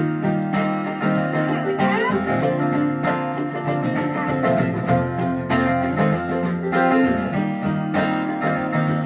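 Live acoustic country band playing the instrumental intro of a song: strummed acoustic guitar with picked string lines over a steady beat, no singing yet.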